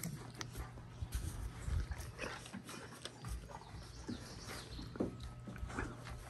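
Dog moving about close to the microphone: scattered short rustles and clicks.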